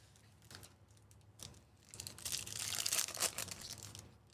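Foil wrapper of a 2024 Topps Chrome Baseball Jumbo pack being torn open and crinkled as the stack of cards is pulled out. A few light clicks come first, then about two seconds of crinkling in the second half.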